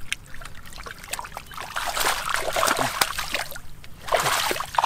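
Hands groping and digging in shallow muddy water, splashing and trickling, with two louder spells of splashing.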